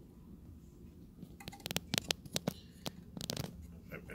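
A string of small clicks and knocks, about a dozen in two seconds, starting about a second and a half in: handling noise from the metal chassis of a Leslie 147 amplifier shifted about on its wooden support blocks.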